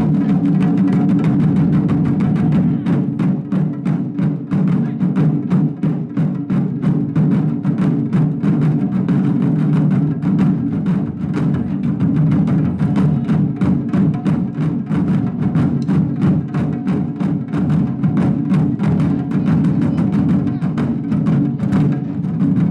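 Taiko ensemble beating barrel-shaped nagado-daiko drums with wooden bachi sticks in a fast, dense, driving rhythm of many strokes a second.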